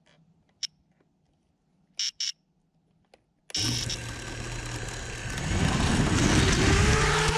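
A few faint, short high chirps, then about halfway an engine starts up suddenly and loud. Its pitch rises as it revs near the end.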